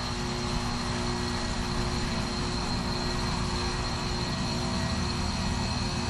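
2009 Lennox 13HPX two-ton heat pump outdoor unit running steadily in heating mode: compressor hum and outdoor fan whir, with a steady high-pitched whine.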